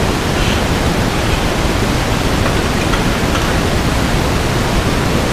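Steady, loud rushing noise with no distinct events, heaviest in the low end.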